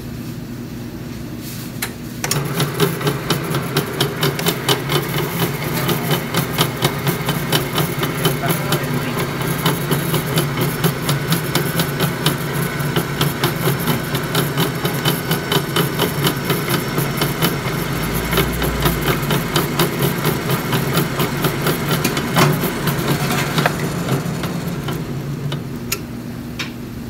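Soft-serve ice cream machine's belt-driven gearbox running with a loud, even knocking, several knocks a second, over a steady machine hum. The knocking starts about two seconds in and stops a few seconds before the end. It is the sign of a defective gearbox assembly.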